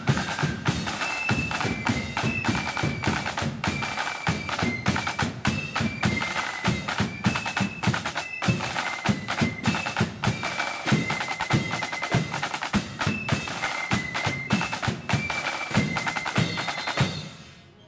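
Marching flute band: side drums playing a busy, rolling rhythm over bass drum beats, with a high flute melody on top. The music fades out about a second before the end.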